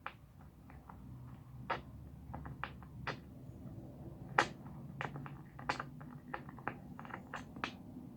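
Irregular clicks and light knocks of chair parts being handled and fitted together during assembly, the sharpest about four seconds in.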